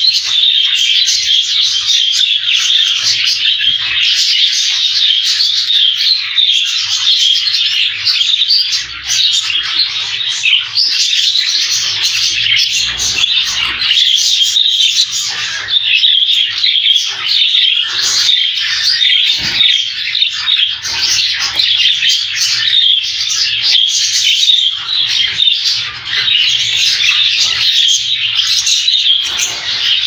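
A flock of budgerigars chattering and chirping without a break, a dense busy warble of many birds at once.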